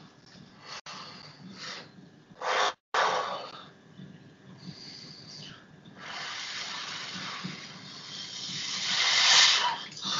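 A man's heavy breathing: a short loud breath about two and a half seconds in, then a long hissing breath that grows louder from about six seconds in and peaks near the end.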